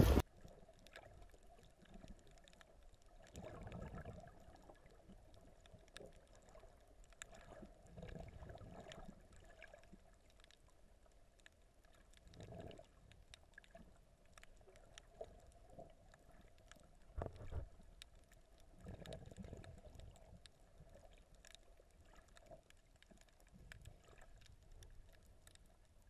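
Faint, muffled underwater sound: soft surges of moving water every few seconds, with scattered small clicks and a steady faint hum.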